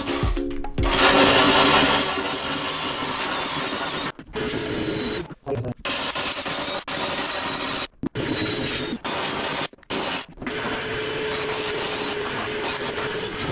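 Handheld power sander running steadily as it sands fiberglass tabbing on the boat's hull, cutting out suddenly for brief moments several times.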